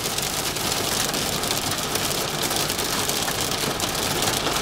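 Heavy rain hitting a moving car's windscreen and body, a steady dense patter over the car's engine and road noise, heard from inside the car.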